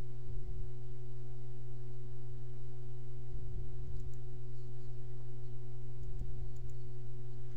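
Steady low electrical hum, with a few faint mouse clicks.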